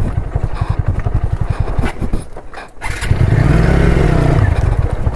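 Motorcycle engine chugging at low revs in an even pulse. About two and a half seconds in it briefly drops away, then revs up louder for about a second and a half before settling back to a low chug.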